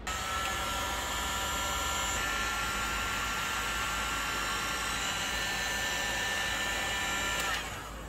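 Wagner Power Stripper heat gun running steadily, its fan blowing hot air with a thin steady whine, as it shrinks heat-shrink tubing onto a battery cable's ring terminal. It switches off about half a second before the end.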